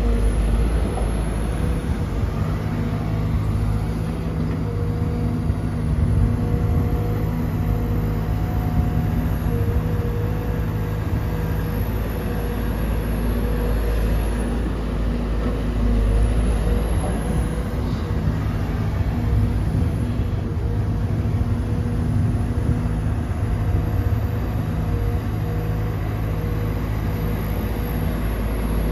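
Diesel engine of a Sumitomo SH210-6 hydraulic excavator running steadily under working load, a low rumble with a droning hum that fades and returns every few seconds.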